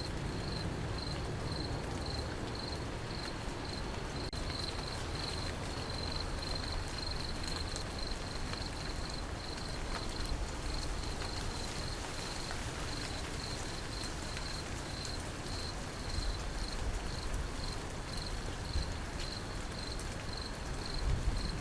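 Steady rain falling, with a cricket chirping in a regular, even pulse throughout.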